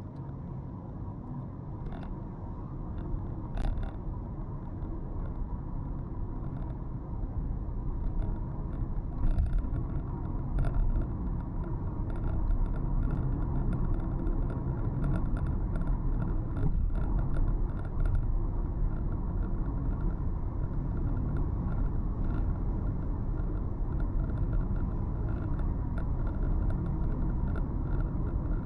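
A car driving on city roads: steady low engine and tyre rumble. It grows louder over the first ten seconds or so, then holds level, with a few faint clicks in the first few seconds.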